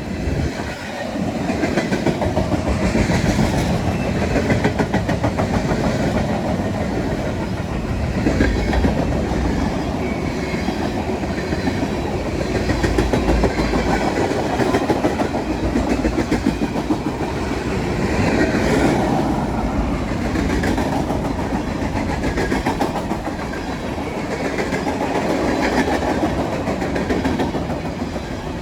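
Freight cars of a CSX train rolling past, with the wheels clacking rhythmically over the rail joints.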